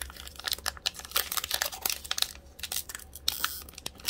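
Foil wrapper of an Upper Deck Series 1 hockey card pack crinkling and crackling in the hands as it is worked and torn open, in a fast, irregular run of sharp crackles.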